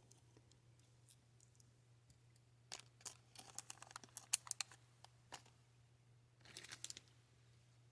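Faint handling sounds: a scatter of small clicks and plastic-bag crinkling as a bag of beads is picked up and opened. The sounds start a little under three seconds in and come again near the end, over a faint low hum.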